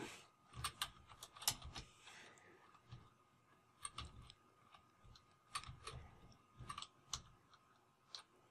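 Faint, irregular keystrokes on a computer keyboard: a few clicks at a time with short pauses between them.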